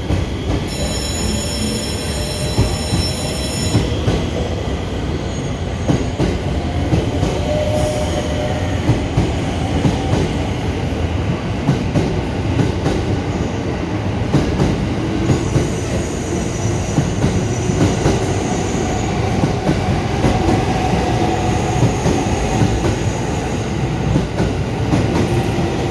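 Electric train moving out of the station platform: steady rumble with wheels clicking over rail joints and squealing at times. A short high electronic tone sounds about a second in.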